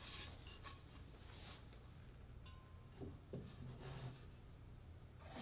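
Near silence: room tone with a low hum, and a few soft rustles and light knocks as decorations are handled and set down on the mantel. The clearest knocks come about three seconds in.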